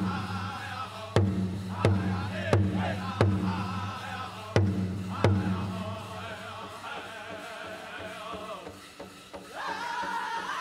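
Pow wow drum group singing a chicken dance song: men's voices in a high group chant over a large pow wow drum struck in loud, unevenly spaced beats. The drumbeats drop back after about six seconds, and the singing swells again near the end.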